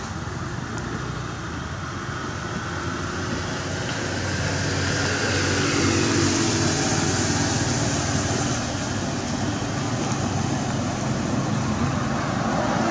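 Road traffic: vehicles driving past, their tyre and engine noise swelling to a peak about six seconds in, easing, then rising again near the end.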